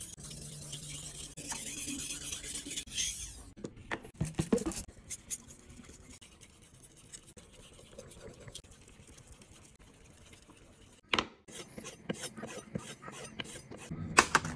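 A kitchen knife being sharpened, its blade scraping in strokes across a whetstone, with a fast run of short strokes in the last few seconds. A soft hiss in the first three seconds.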